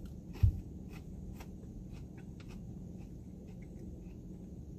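A person chewing a curly fry: faint, scattered mouth clicks and soft crunches, with one dull thump about half a second in.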